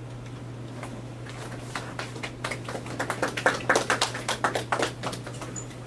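A small audience clapping: scattered claps at first, growing thicker about three seconds in, then dying away near the end. A steady low hum runs underneath.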